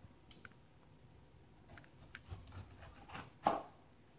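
Large kitchen knife cutting the rind off a pineapple: faint scraping cuts and a few sharp clicks, the loudest about three and a half seconds in.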